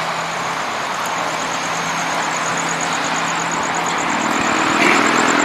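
Steady motor-vehicle engine noise with a low hum, like a car idling, and a faint rapid high-pitched pulsing.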